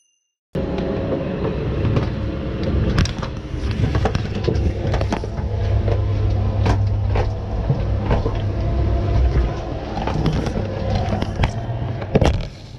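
Steady low rumble of a moving vehicle with irregular knocks and rattles, starting about half a second in and breaking off near the end.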